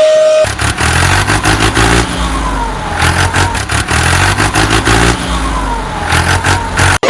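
Truck engine running and revving with clattering, starting sharply about half a second in and cutting off abruptly just before the end. A steady high whine sounds before it and returns after it.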